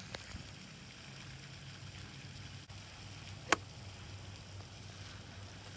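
A gap wedge strikes a golf ball once in a knockdown approach shot, a sharp crack about three and a half seconds in, over a steady low hum.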